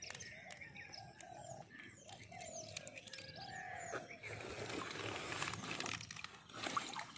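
Birds calling: high down-sweeping chirps throughout, with a run of short lower notes in the first few seconds. From about four seconds in, shallow pond water sloshes and splashes as a cloth sack is dipped into it.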